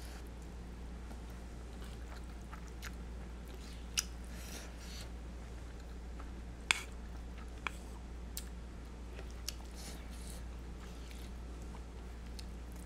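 Close-up eating sounds of creamy spaghetti carbonara: soft chewing, with a handful of sharp clicks of chopsticks against the bowl and pot, over a steady low hum.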